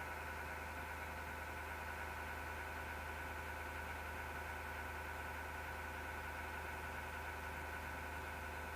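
Computer power-supply fan running: a steady low hum with several constant whining tones above it. This is the grinding noise that the uploader puts down to a non-lubricated fan.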